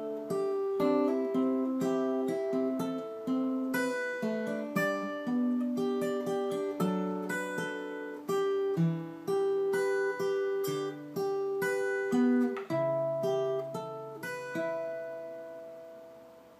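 Acoustic guitar fingerpicked, single notes of a chord progression ringing into one another, ending on a chord left to ring and fade out.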